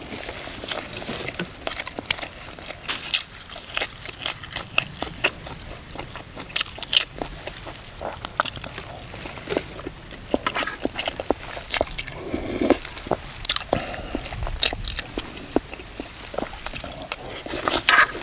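A person chewing and crunching crisp cucumber salad close to the microphone: many irregular short crunches and wet mouth clicks.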